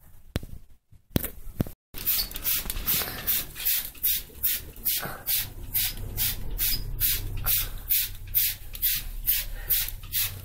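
Hand spray bottle squirting alcohol disinfectant in quick, even pumps, about three a second, starting about two seconds in. The alcohol deodorises and disinfects the spot where bat droppings were cleared.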